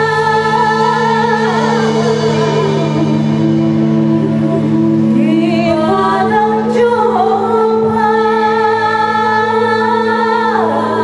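Live Minangkabau traditional-music ensemble piece: women's voices sing long held notes with vibrato over a steady low drone. The melody slides downward about two seconds in and again near the end.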